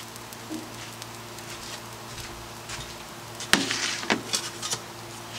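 Hot Blackstone griddle top sizzling and crackling softly with oil residue just after its burners are shut off. A sharp click comes about three and a half seconds in.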